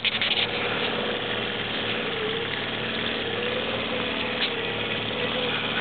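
Boat motor running steadily at low speed, a constant hum with a slightly wavering tone. A brief flurry of rattling clicks right at the start.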